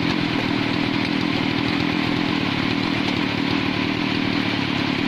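Husqvarna two-stroke chainsaw idling steadily off the throttle.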